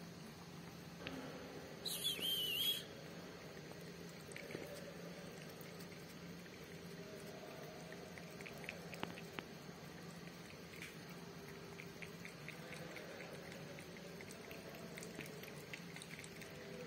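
A calico cat lapping milk from a plastic cup: faint, quick wet ticks, about four a second, that come and go. About two seconds in there is one short, high, wavering squeak, the loudest sound here.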